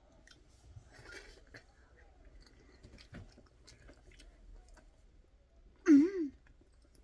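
Close-miked mouth sounds of someone chewing a chewy rice-cake ice cream, with faint wet clicks and smacks. About six seconds in comes a short, much louder hum that wavers in pitch.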